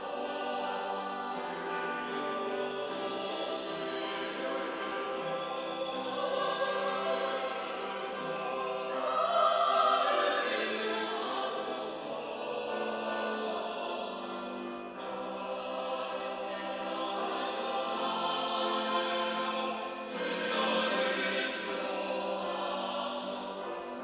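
Church choir singing a Sunday anthem in parts, held chords moving from one to the next, swelling loudest about ten seconds in.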